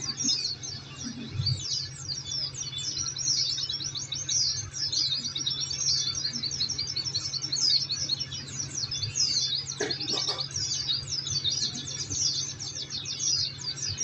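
Many white-eyes (pleci) twittering together in a dense, unbroken stream of fast, high chirps, over a steady low hum. A couple of brief knocks sound about two-thirds of the way through.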